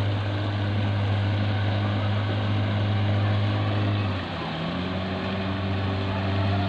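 An engine running steadily up close, with a deep hum that drops in pitch and eases off about four seconds in as it slows.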